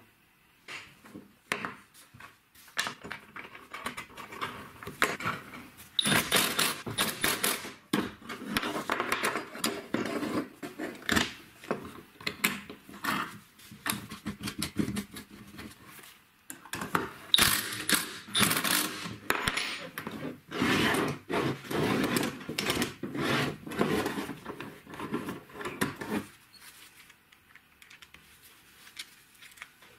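Drilled steel flat bars, bolts and locking pliers clinking and clattering on a workbench as metal parts are clamped and bolted together by hand. A few scattered clicks at first, then busy clattering for most of the time, thinning out near the end.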